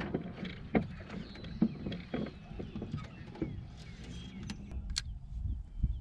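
Scattered knocks and clicks of gear and hands on a small fishing boat, about one a second, the sharpest near the end, over a steady low rumble.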